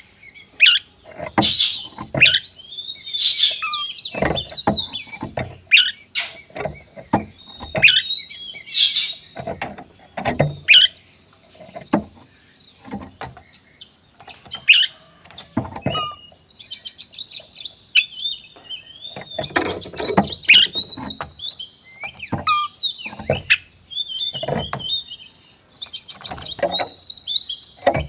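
Oriental magpie-robin (kacer) singing in its aggressive 'narung' fighting mode: a dense stream of varied high whistles and rapid repeated trills, broken by many short, harsh notes.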